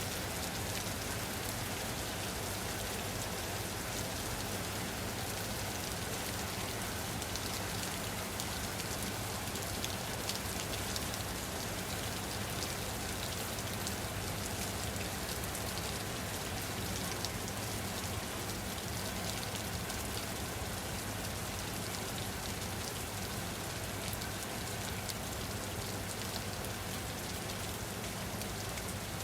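Steady rainfall, many drops pattering on a surface, with a constant even hiss and no breaks or thunder.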